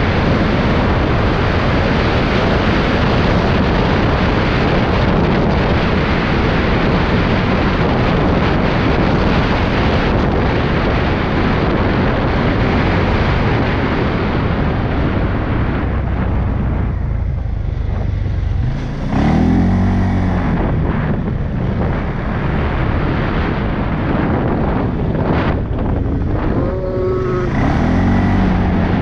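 CFMOTO CForce 625 ATV's single-cylinder engine running at speed, under heavy wind rushing on the microphone. About halfway through the wind eases and the engine note comes through, its pitch rising and falling a couple of times as the throttle is worked.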